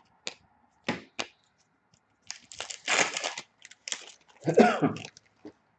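Trading cards being handled with a few sharp clicks, then a foil card pack wrapper torn open and crinkled, with the loudest rustle about four and a half seconds in.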